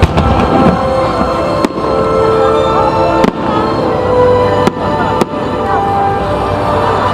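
Aerial firework shells bursting: about five sharp bangs, one or two seconds apart, the first the loudest. Music plays steadily underneath.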